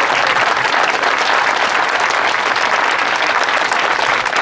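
A crowd applauding steadily with many hands clapping.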